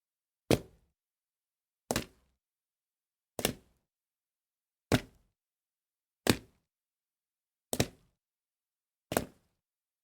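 A foley impact effect: seven sharp single thunks, evenly spaced about a second and a half apart, each dying away quickly, with dead silence between them.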